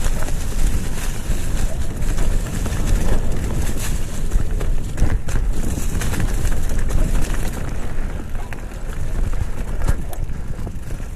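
Wind buffeting the microphone over a mountain bike rolling along a rocky trail covered in dry leaves: tyre crunch and drivetrain rattle, with occasional knocks as the bike hits rocks and roots.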